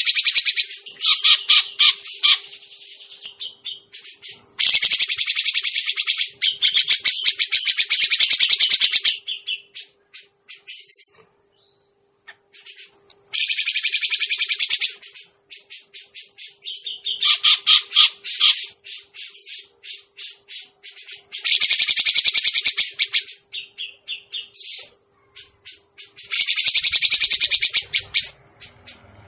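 Cucak jenggot (grey-cheeked bulbul) lure call: loud, harsh, rapid chattering in bursts of two to four seconds, repeated about every four seconds, with softer scattered chirps between the bursts.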